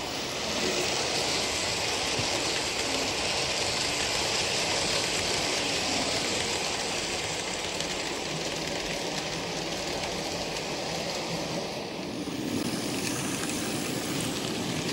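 OO gauge model trains running on the track: a steady rushing whirr of wheels on the rails and the locomotive motor. It deepens a little near the end as a model locomotive passes close by.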